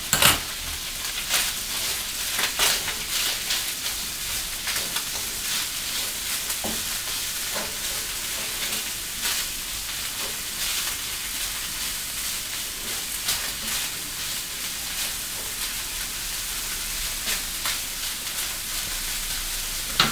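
Canned tuna sizzling steadily in a frying pan, stirred with a spatula that scrapes and taps against the pan now and then.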